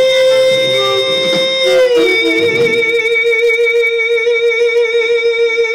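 A woman's singing voice holding one long final note, steady at first, stepping down slightly in pitch about two seconds in, then held with a wide, even vibrato.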